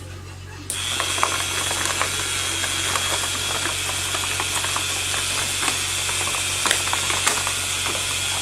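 Homemade K'nex shredder's small electric motor and plastic gears running, a steady high whine with fast, irregular clicking; it starts about a second in.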